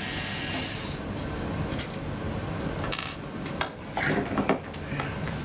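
Scattered clicks and light metallic clatter of oscilloscope parts and hand tools being handled during disassembly, with a short hiss at the start and the loudest cluster of clicks about four seconds in.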